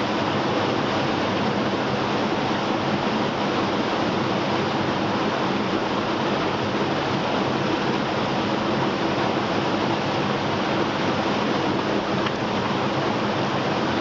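Steady rushing of a fast-running mountain creek with waterfalls.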